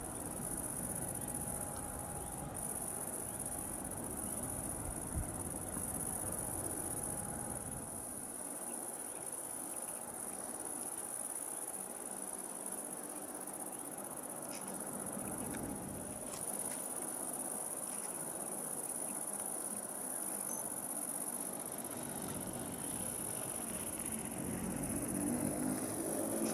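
Steady high-pitched chirring of crickets in the grass, over the faint distant sound of a Transall C-160's Rolls-Royce Tyne turboprops. Near the end the turboprop sound grows louder as the engines come up to power for the takeoff run.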